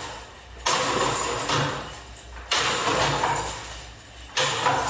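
Discs striking the chains of a disc golf practice basket three times, about once every two seconds; each hit is a sudden metallic chain rattle that dies away over a second or so.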